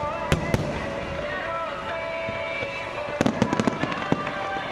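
Fireworks going off: sharp bangs, two near the start and a rapid cluster of cracks about three seconds in, over a continuous background of music and voices.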